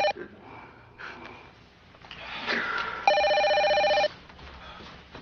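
Landline telephone ringing with an electronic trill: the tail of one ring right at the start, then another ring of about a second, three seconds in.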